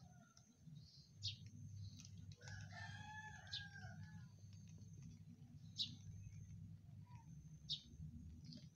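A faint rooster crowing once, for about a second and a half, a few seconds in. Short high chirps recur about every two seconds over a steady low hum.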